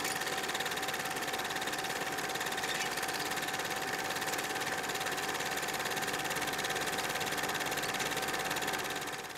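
Film projector running: a steady, fast mechanical clatter with a steady tone under it, fading out at the end.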